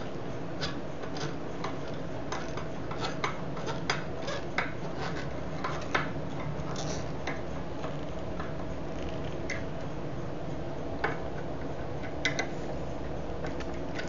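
Screwdriver tightening the screws of a metal latch strike plate on a wooden door frame: scattered small metallic clicks and ticks, most of them in the first half.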